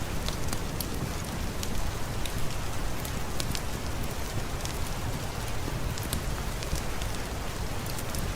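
Steady rain with scattered sharp crackles and pops from a wood fire.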